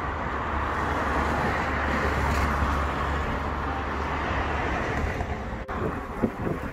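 Wind buffeting a handheld microphone outdoors, a steady rush with a deep rumble that swells during the first couple of seconds and fades, then turns into choppy gusts near the end.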